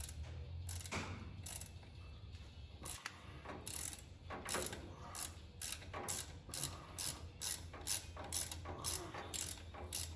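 Ratchet wrench clicking as the bolts holding the driveshaft to the rear pinion yoke are worked loose. A few scattered clicks at first, then from about four seconds in a steady run of clicks at about two to three a second, over a low hum.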